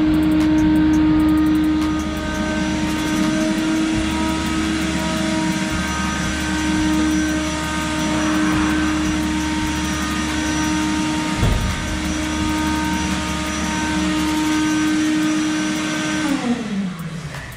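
A car-wash machine's electric motor running with a steady, high whine, then switched off about a second before the end and winding down in pitch as it spins to a stop.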